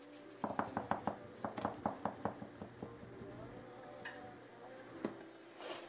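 Paprika shaker jar shaken over a bowl: a quick run of soft taps for about two and a half seconds, then only a few faint ticks.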